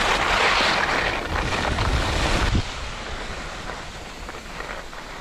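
Wind rushing over the action camera's microphone and skis sliding and scraping over packed groomed snow on a downhill run. About two and a half seconds in it drops abruptly to a quieter, softer hiss of skis on snow.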